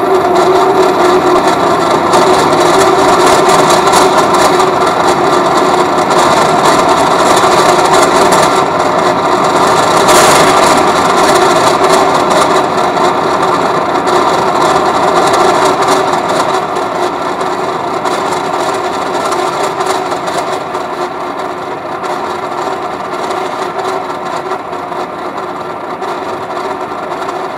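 Dense, grainy electronic noise with steady humming tones underneath, from synthesizers and transducer-driven objects in a sound-art performance. It slowly fades over the second half.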